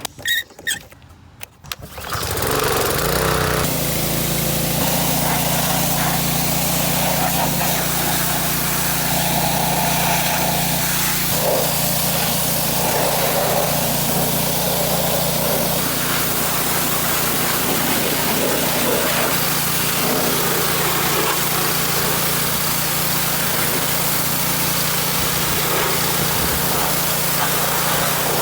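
A small engine starts running about two seconds in and keeps going at a steady, unchanging speed, with a constant low hum under a broad hiss.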